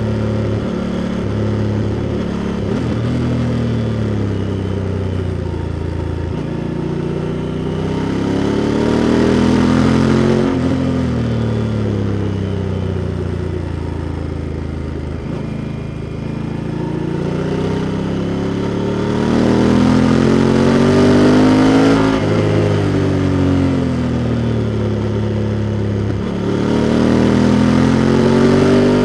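Honda Africa Twin's parallel-twin engine running under way, recorded close to the engine. Its pitch climbs under acceleration three times, falls sharply about ten seconds in and again a little past twenty seconds, and sinks back as the throttle eases in between.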